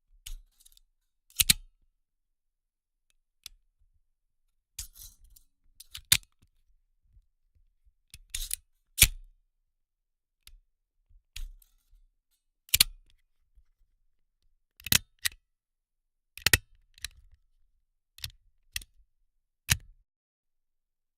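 Desk stapler being pressed over and over: sharp metallic clacks, about fifteen of them at irregular gaps of one to two seconds, some coming in quick pairs.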